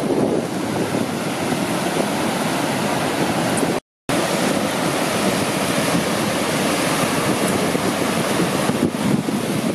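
Surf breaking and washing up a sandy beach in a steady rush, with wind on the microphone. The sound drops out for a moment about four seconds in.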